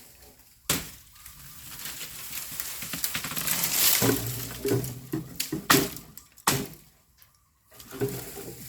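Bamboo being cut back: a sharp knock about a second in, a swelling rush of rustling and cracking in the middle, and two more sharp knocks near the end.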